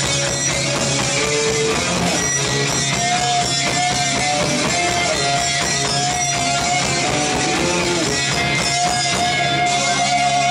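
Punk band playing live: electric guitars strummed over bass and a steady drum beat, with a held guitar note running above the chords from about three seconds in.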